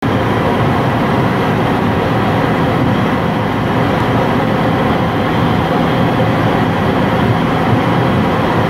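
Steady cabin noise of a Volkswagen at speed: engine running with road and wind noise, unchanging throughout.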